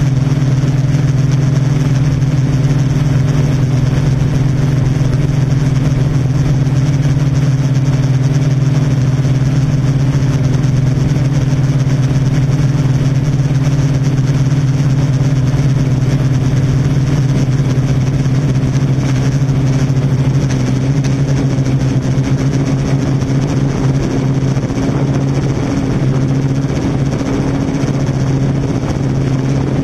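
Yuneec Typhoon Q500 4K quadcopter's motors and propellers running with a steady hum over a hiss. The pitch wavers a little from about twenty seconds in.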